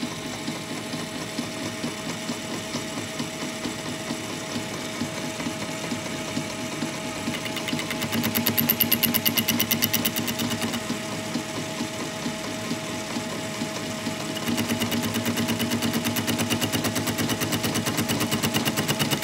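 Old South Bend metal lathe running, its carbide-insert tool turning the outside of a steel sprocket where the teeth have been cut back. The interrupted cut gives a fast rhythmic chatter. The cut grows louder and sharper from about 8 to 10 seconds in, and again over the last five seconds.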